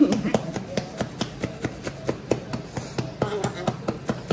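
Rapid, slightly uneven tapping, about three or four sharp clicks a second, with a few brief high-pitched wails from a newborn in between.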